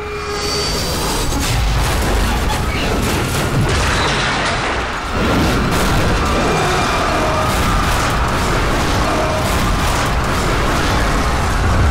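Explosion as a hijacked airliner strikes the World Trade Center's South Tower: a sudden boom about five seconds in, within continuous loud rumbling noise.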